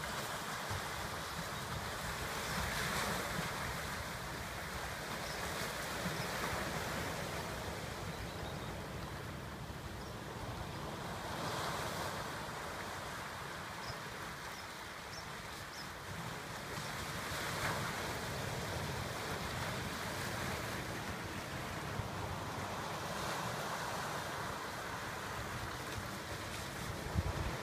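Ocean surf breaking at the mouth of a rocky gully and washing in over boulders, a steady wash that swells every few seconds as each wave breaks, with a low rumble of wind on the microphone.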